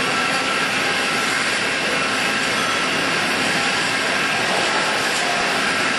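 Steady machinery noise in a wire mesh welding workshop: an even, continuous hiss and hum with a faint steady whine and no distinct strokes.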